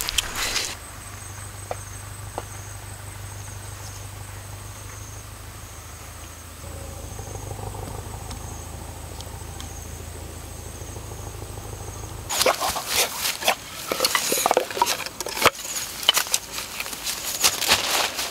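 Insects chirping in a slow, regular pulse over a low steady hum; about two-thirds of the way through, a dense run of rustling, snapping and clattering begins as leafy branches and sticks are handled.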